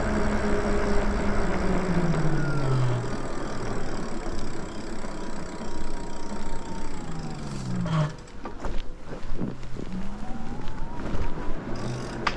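Electric e-bike hub motor whining, its pitch falling as the bike slows and rising again as it speeds back up near the end, over wind rush on the microphone and tyre noise on pavement. A few light clicks come just past the middle.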